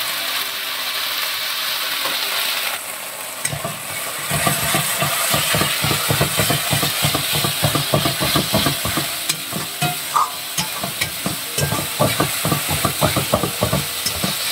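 Onion-spice masala with freshly added chilli powder sizzling in oil in a metal kadai; from about three and a half seconds in, a metal spatula stirs and scrapes it against the pan in quick, repeated strokes.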